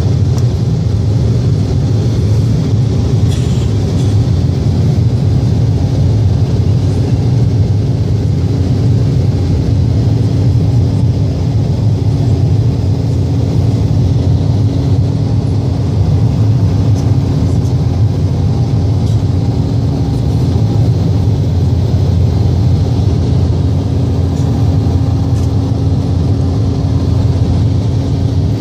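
Jet airliner cabin noise in flight: a steady, loud low rumble of engines and rushing air, with a steady hum running through it.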